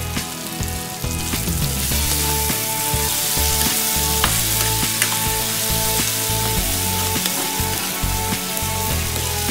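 Fried tofu cubes with onion and tomato sizzling in a hot frying pan while being stirred with a spoon. The sizzle grows louder about a second and a half in, with a few sharp clicks of the spoon against the pan.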